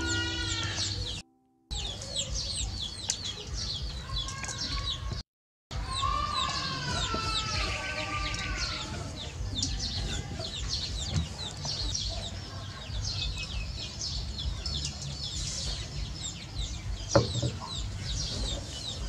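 Chickens clucking among small birds chirping over and over, with a longer arching call about six seconds in that sounds like a rooster crowing. A sharp knock comes near the end, and the sound drops out briefly twice early on.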